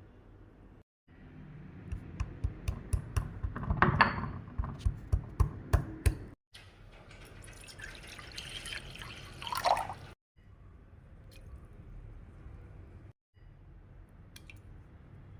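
A fast run of sharp kitchen knocks, about three a second, lasting several seconds; this is the loudest part. Later comes a few seconds of water being poured into a vessel, over low kitchen background noise.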